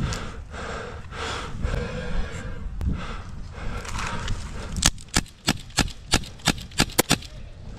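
Heavy breathing, then an airsoft pistol firing about ten sharp shots in quick succession, starting about five seconds in.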